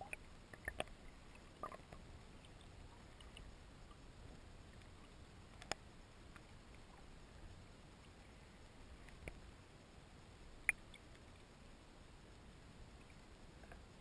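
Faint muffled water sound from a camera at and just under the water surface: a low hiss with scattered small clicks and pops of water against the housing, several close together in the first couple of seconds and sharper single ones about six and eleven seconds in.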